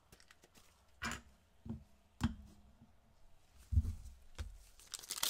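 A handful of soft taps and knocks as trading cards are handled and set down on a tabletop display stand, then the foil wrapper of the next card pack starts to crinkle near the end.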